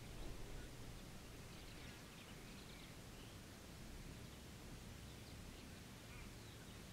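Faint outdoor evening ambience: a soft, steady background hush with distant birds chirping a few times, in clusters about two seconds in and again in the second half.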